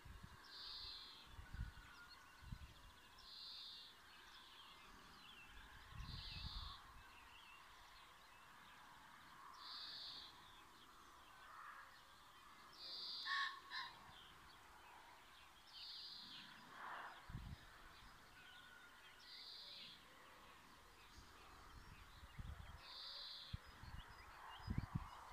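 Faint outdoor nature ambience: a bird's short high call repeated about every three seconds, with a few soft low thumps in between.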